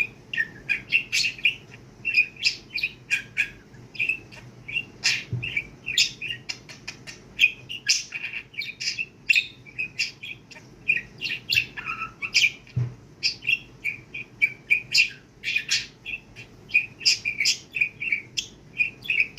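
Budgerigar chattering: a continuous run of quick chirps, warbles and clicks without pause.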